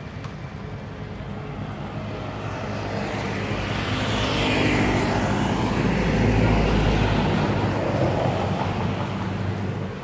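A motor vehicle passing on the road close by: its engine hum and tyre noise grow louder, peak between about five and eight seconds in, then fade.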